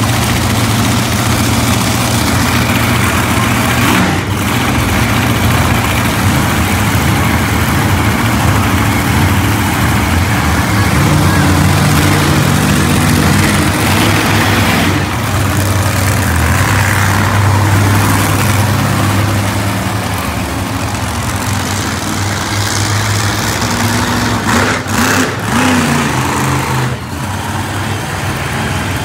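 Monster truck engines running loud, mostly idling, the engine note rising and falling a few times.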